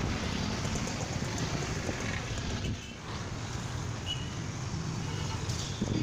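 Steady city road traffic noise from cars and auto-rickshaws passing on a busy road.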